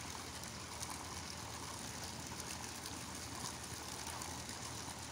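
Hot spring water pouring from pipe spouts into a pool, a steady splashing and trickling.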